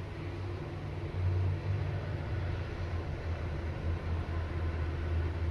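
Low, steady background rumble, a little louder from about a second in, with no distinct clicks, knocks or tool noise over it.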